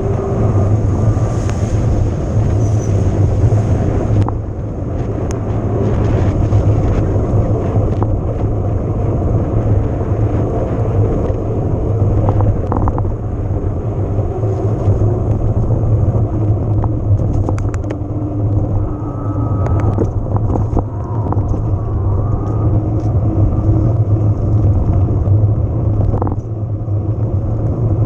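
Continuous ride noise from an electric mountain bike on a trail: a loud steady rumble of wind and rolling tyres, with scattered small clicks and rattles.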